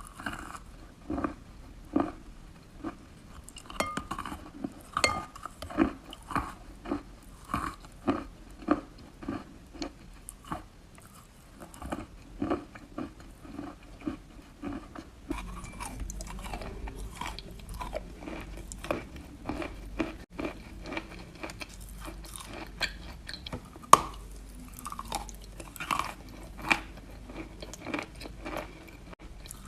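Close-miked chewing of wet chalk: soft, crunchy bites about once a second, turning into denser chewing with a faint low hum under it about halfway through.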